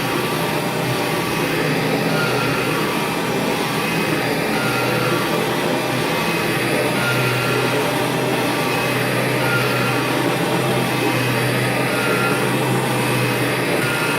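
Kirby G4 upright vacuum cleaner running steadily.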